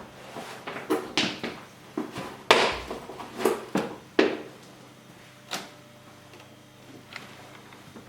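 A string of irregular knocks and clacks, like drawers, doors or objects being handled in a small room, about a dozen in all, the loudest around two and a half seconds in, thinning out after about six seconds.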